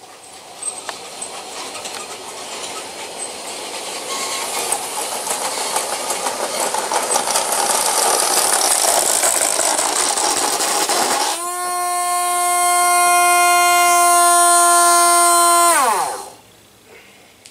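Bachmann G-scale 4-6-0 locomotive running on the rails, its motor, gears and wheels clattering and growing louder as it comes closer. About eleven seconds in, a loud steady tone starts and drowns the clatter; it holds for about five seconds, then slides down in pitch and stops.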